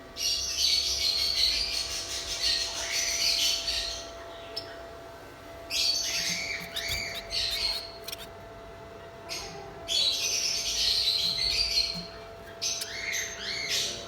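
Budgerigars chattering and squawking in three loud bouts of rapid, high warbling calls with short quiet gaps between, over a faint steady hum.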